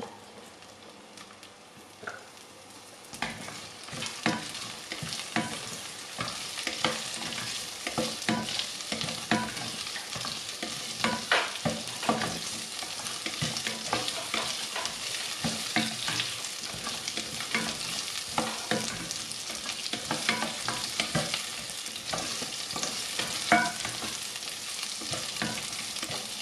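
Shallots, bay leaves, pandan and curry leaves frying in hot oil in a pressure-cooker pot: the tempering for a curry, sizzling steadily. From about three seconds in, a spatula stirs them, with frequent scrapes and knocks against the pot.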